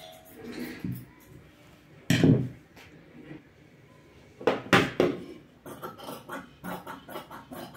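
Two loud clatters of scissors and fabric being handled on a cutting table. From about two seconds before the end, dressmaking scissors snip through cloth in a regular run of short cuts, about three or four a second.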